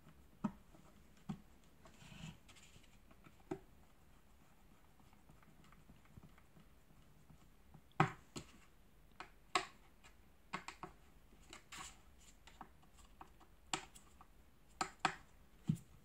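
Scattered sharp clicks and light plastic knocks from a hand screwdriver working screws into the plastic cyclone assembly of a Dyson DC37 vacuum cleaner. The loudest knocks come about eight and nine and a half seconds in.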